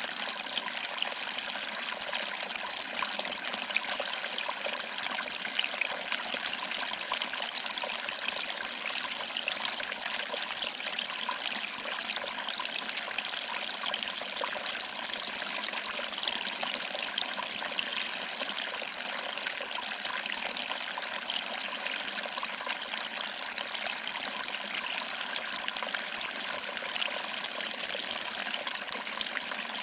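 Small waterfall: water trickling over rocks and splashing into a small pool, a steady even rush with fine irregular splashes.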